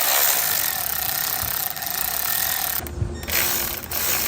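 Ratchet wrench ratcheting steadily, backing out fasteners on the factory intercooler, with a short break about three seconds in.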